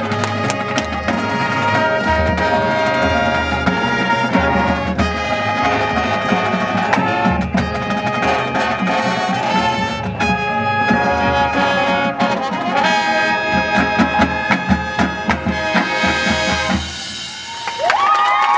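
Marching band playing: brass section of trumpets and trombones over snare and bass drums. There is a brief dip in level near the end.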